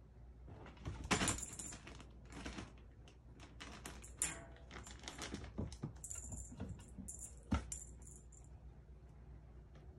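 Short bursts of light jingling and rattling among scattered taps and rustles, from a Bengal kitten batting at a dangling wand toy on a wood floor.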